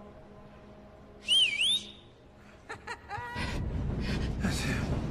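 A sharp whistle of about half a second, about a second in, its pitch dipping and rising. About three seconds in, a loud, low rushing noise starts and keeps going.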